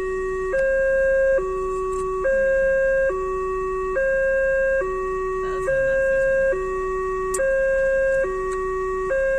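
Railway level-crossing warning alarm sounding, the signal that a train is approaching and the barrier is closing: an electronic two-tone alarm alternating steadily between a low and a higher note, each held just under a second.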